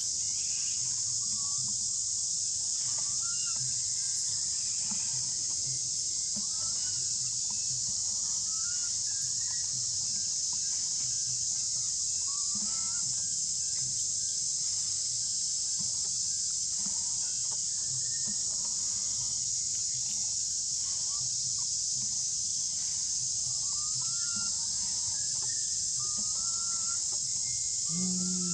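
Steady high-pitched drone of forest insects, with many short rising calls scattered over it.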